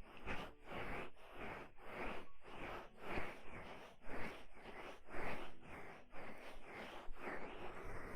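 ASMR ear massage: hands rubbing over the microphone in even, rushing strokes, about two or three a second.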